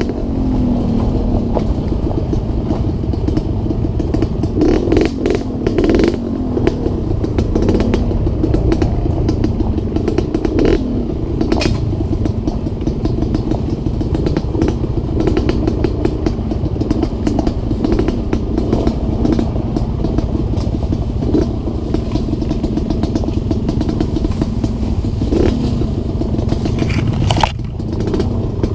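Dirt bike engine running as it is ridden along a rough, rutted dirt trail, with frequent clattering knocks from the bike jolting over bumps.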